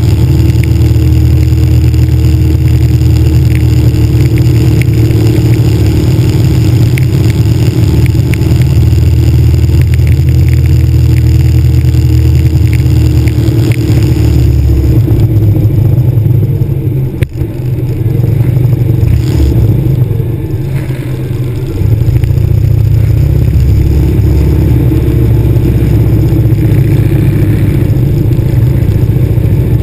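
Cruiser motorcycle's engine running under way, heard close up from its handlebars. The level drops briefly a little past halfway, then eases off for a couple of seconds before picking up again.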